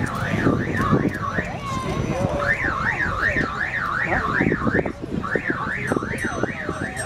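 Car alarm siren wailing up and down about two and a half times a second, in runs with short breaks between them.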